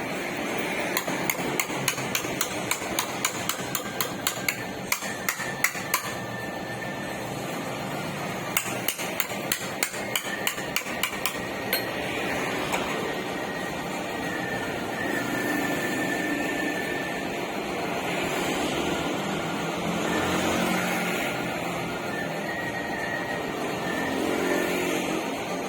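Hammer striking car body sheet metal, panel-beating work at about two blows a second in two runs during the first half. After that the blows stop, leaving a steady background with a faint thin high tone.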